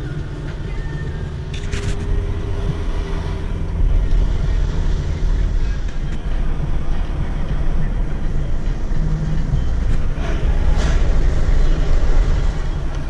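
Steady low rumble of engine and tyre noise heard from inside a moving pickup truck's cab, with two brief higher swishes, one about two seconds in and one near the end.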